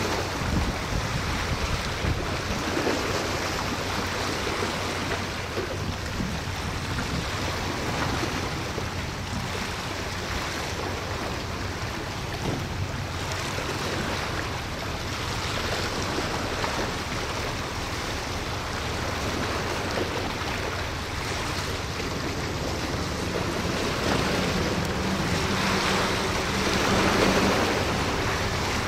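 Wind gusting on the microphone over the wash of sea water, with a steady low boat-engine drone underneath. Near the end the wind and water swell louder and a second, higher engine tone joins the drone.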